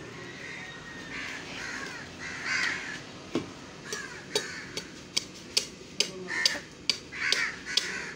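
Heavy butcher's cleaver chopping into mutton held in the hand. From about four seconds in there are sharp cracks, two to three a second. Harsh calls sound in the background, most of all in the first half.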